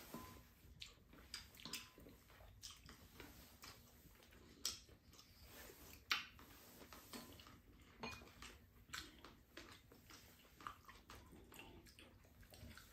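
Quiet eating sounds: wooden spoons and chopsticks clicking and scraping against ceramic bowls, with chewing. Scattered soft taps, a couple of them louder about five and six seconds in.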